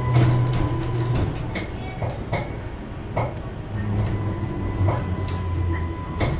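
Inside a Class 230 D-Train car (converted D Stock) standing at a station with doors open: a steady low hum from the underfloor diesel generator sets idling. A scatter of sharp clicks and knocks runs through it.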